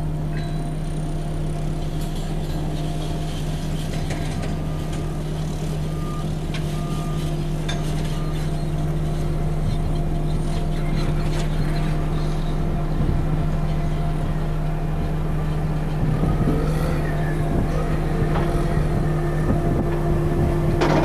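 Mini excavator's diesel engine running steadily under hydraulic load while drilling into soil, with a few light knocks, growing somewhat louder in the second half.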